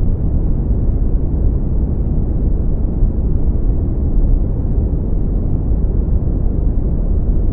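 Deep, bass-boosted brown noise: a steady, even low rumble with most of its energy in the bass and almost nothing above the upper midrange.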